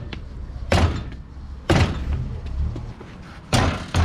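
Four heavy thuds as the wheel and tyre bolted to the hub are struck, the last two close together near the end, to knock a hub seized with years of corrosion out of its steering knuckle.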